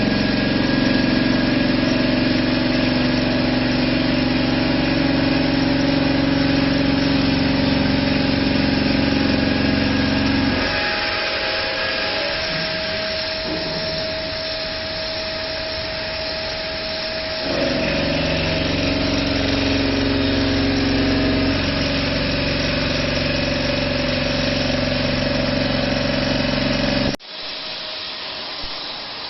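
CNC bridge saw running as it machines a shower base: a steady machine hum with cutting noise over it. Partway through, the low hum drops away for several seconds and then returns. Near the end the sound changes abruptly to a quieter, steady hiss.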